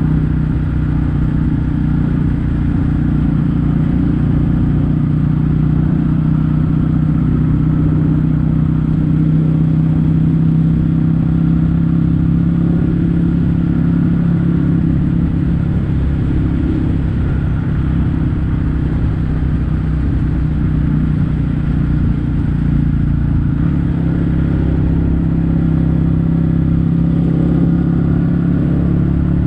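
Kawasaki W800's air-cooled parallel-twin engine running at a steady, even pitch through Yamato stainless-steel Cabton-style silencers while the bike cruises.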